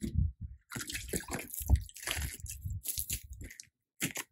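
Plastic bottles and containers being handled and set down on a truck's diamond-plate bed: irregular crinkles, knocks and scrapes, with a little water sloshing.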